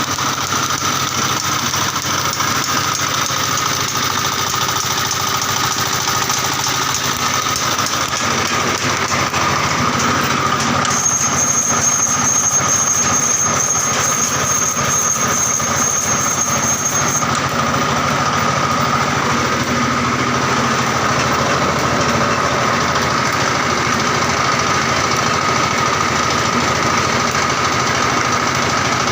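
Meatball meat-grinding machine running, driven by its 16 hp diesel engine through a pineapple-gear transmission: a steady, loud engine clatter with a high whine. A thin, higher tone sounds for several seconds in the middle.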